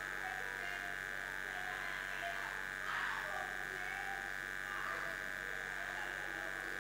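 A steady high-pitched electronic buzz, with faint murmuring voices of the gathered crowd underneath.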